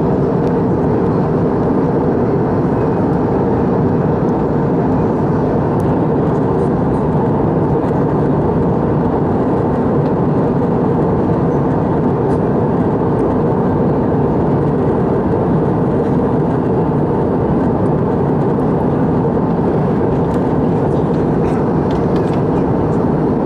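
Steady drone of an Airbus A319 in flight, heard from inside the passenger cabin: engine and airflow noise running evenly, with a few faint clicks.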